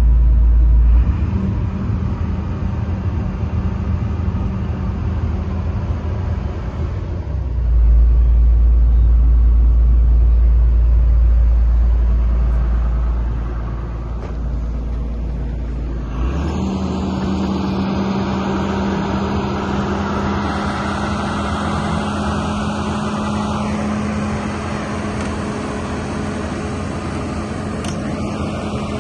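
Caterpillar 320D2L excavator's diesel engine running steadily with a constant hum. A heavy low rumble sits under it in the middle. About sixteen seconds in, the engine tone steps up slightly and the sound grows fuller and noisier.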